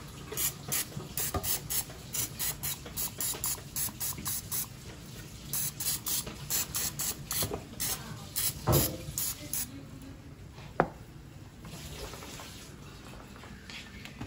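Cooking oil spray can hissing in many short squirts, about two or three a second with a brief pause midway, as oil is sprayed over wonton shells in an air fryer basket. The spraying stops after about ten seconds, with a couple of sharp knocks near the end of the spraying.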